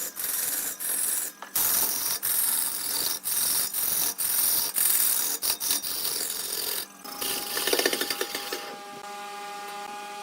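Rasping scrape against wood on a lathe, in repeated strokes broken by short gaps. About seven seconds in it turns briefly rattly, then gives way to a quieter steady machine hum with a whine.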